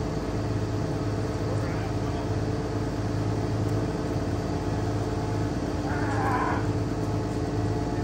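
Engine running at a steady idle with an even hum, the lift truck's engine kept running to power the aerial bucket's hydraulics.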